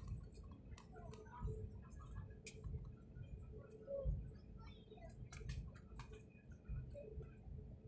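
Low cabin rumble inside an Airbus A320 on the ground, with scattered sharp clicks and knocks through it.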